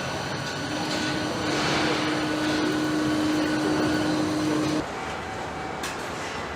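Car assembly-line machinery running, a steady mechanical din. Over it a steady machine hum starts under a second in and cuts off suddenly about five seconds in.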